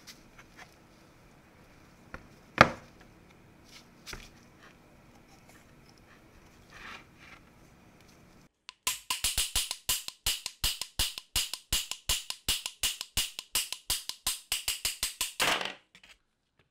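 Hammer drill gear housing handled and knocked on a workbench: a few separate sharp knocks, then a run of even, rapid taps, about five a second, lasting about seven seconds and stopping suddenly.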